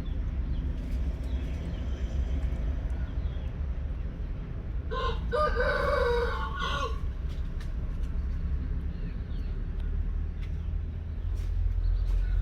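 One drawn-out animal call lasting about two seconds, near the middle, over a steady low hum.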